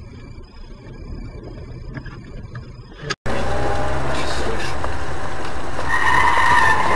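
Road vehicle noise: a faint rumble of traffic, then an abrupt cut about three seconds in to a much louder, steady rush of road and engine noise, with a high steady tone joining near the end.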